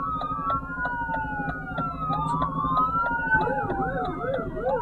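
Several police car sirens wailing together, their long rising and falling sweeps overlapping, with one switching to a fast yelp about three and a half seconds in.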